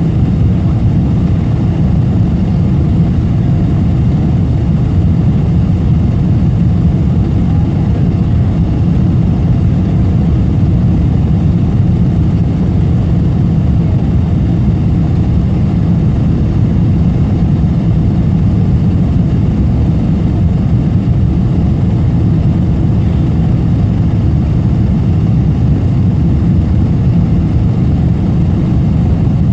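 Steady low rumble of an airliner's engines and airflow heard from inside the passenger cabin, unchanging throughout.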